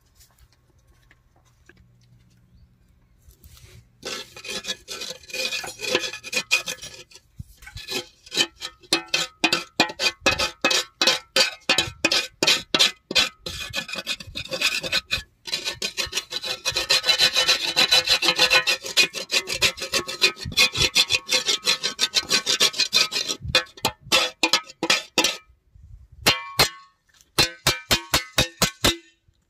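Repeated scraping strokes on a curved thin-steel thresher panel as it is scraped clean of dirt, the sheet metal ringing under each stroke. The strokes start about four seconds in at two or three a second, run together into continuous scraping for a while, then stop and give way to a few sharp taps near the end.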